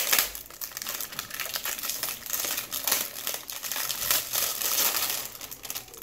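Clear plastic packaging on a new microscope crinkling as hands work it loose and peel it off, a continuous run of small crackles.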